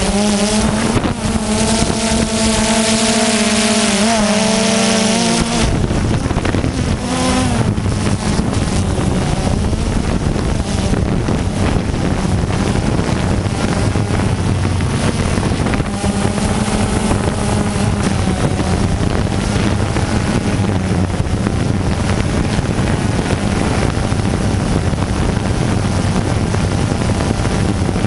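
DJI Phantom 2 quadcopter's four electric motors and propellers whirring with a steady hum, heard up close from the camera slung under the drone. About five seconds in, wind buffeting on the microphone takes over as a low rumble, and the rotor hum carries on fainter beneath it.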